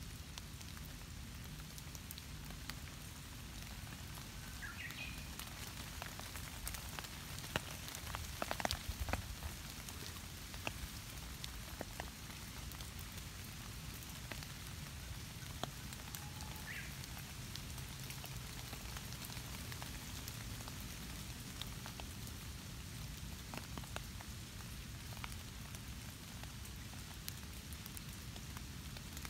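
Steady light rain pattering on leaves and ground, with scattered drops ticking close by and a cluster of louder drips about eight seconds in. Two faint short calls are heard, at about five and seventeen seconds.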